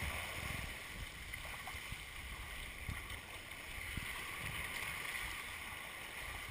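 Sea water rushing and splashing along the hull of a sailing yacht under way, as a steady hiss, with an uneven low rumble of wind on the microphone.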